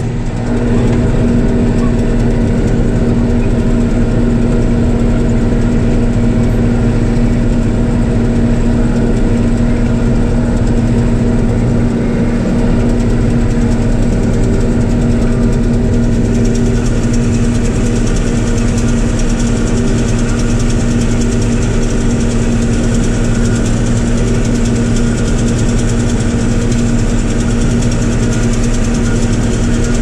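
John Deere combine running steadily while harvesting soybeans, heard from inside the cab as a constant drone with a strong steady hum. A higher hiss grows stronger about halfway through.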